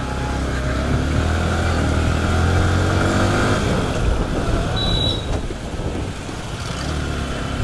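Yamaha R15 V4's single-cylinder engine running under way, its pitch rising as the bike accelerates over the first few seconds, then easing off briefly. A short high beep sounds about five seconds in.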